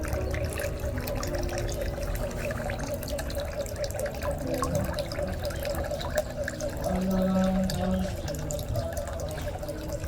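Water running and splashing, with steady held tones at several pitches underneath that change every second or so.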